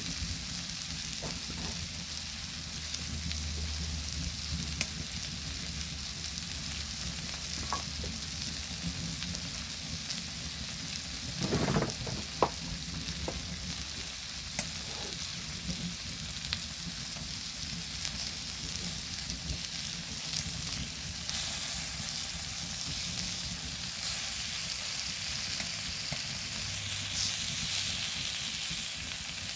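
Meat sizzling steadily on a hot flat stone slab heated over a wood fire, with scattered sharp clicks and a brief louder clatter about twelve seconds in.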